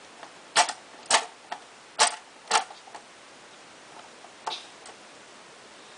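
Plastic buttons on a child's toy clicking as they are pressed: four sharp clicks in about two seconds, then a fainter one a few seconds later.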